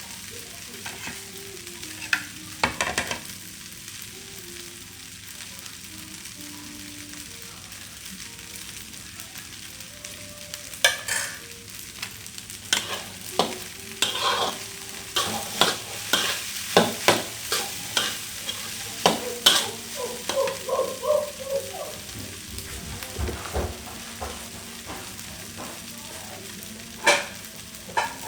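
Fried rice sizzling in a hot pan while it is stirred and turned with a spatula: a steady frying hiss with bursts of sharp scraping knocks against the pan, busiest in the middle and again near the end.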